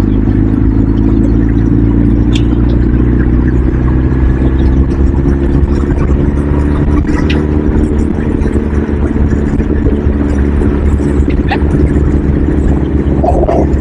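A vehicle engine running steadily at speed, its pitch drifting slowly up and down, over a heavy low rumble of travel.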